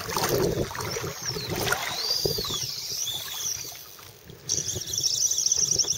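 Shallow water sloshing with wind noise, then, about four and a half seconds in, a fishing reel's drag starts a fast, high buzz as a hooked fish pulls line off the reel.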